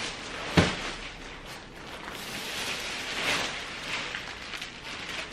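A sharp knock about half a second in, then rustling and scuffing as a crib mattress is handled and lifted.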